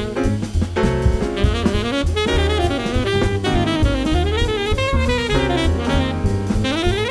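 Jazz saxophone soloing over piano, bass and drum kit, a winding melodic line with smooth rises and falls in pitch.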